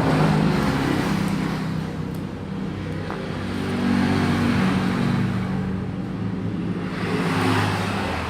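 Motor vehicle engines passing by as traffic noise, swelling and fading about three times. No clear weld crack stands out above it.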